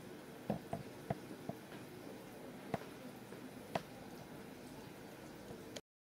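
Quiet room tone with about half a dozen faint, sharp clicks and taps in the first four seconds. The sound cuts out completely near the end.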